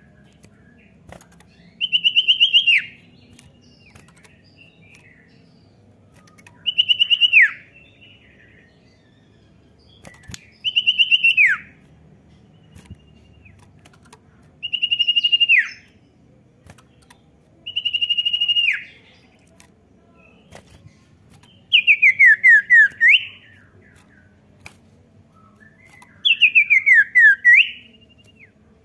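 Common iora singing: seven short, very rapid trills, one about every three to four seconds. The first five hold level and then drop sharply at the end; the last two fall step by step and flick back up.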